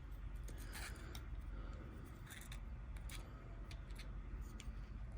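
Faint, irregular small metallic clicks and taps of lock pins and pinning tools being handled while loading spool pins into a Kwikset lock cylinder.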